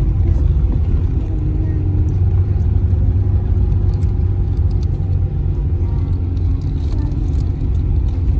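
Car driving along a road: a steady low engine and road rumble.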